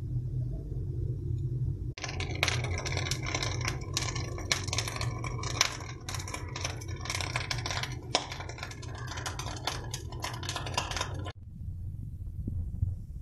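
Steel spoon scraping and clicking against a metal pan as boiled egg yolks are stirred and pressed while frying down to release their oil. It comes as quick, irregular scrapes and taps over a low rumble, starting abruptly about two seconds in and stopping abruptly near the end.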